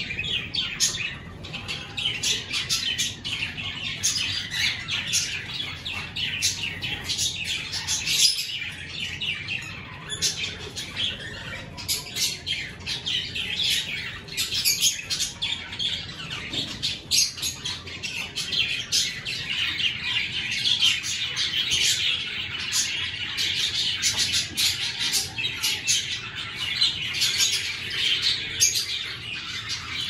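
Aviary cockatiels chirping and squawking, many short calls overlapping without a break.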